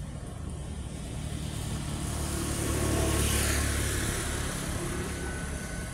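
A motor vehicle drives past, its engine and road noise swelling to a peak about three seconds in and then fading away.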